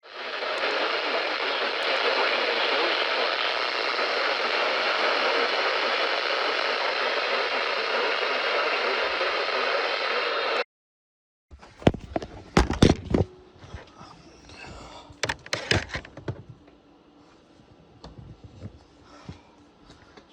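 Steady radio static hiss for about ten seconds, cutting off suddenly. After a short silence comes a run of sharp clicks and crackles, then faint noise.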